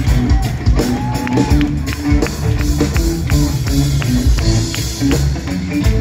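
Live rock band playing, with electric bass and drum kit, the drums keeping a steady beat of about four hits a second.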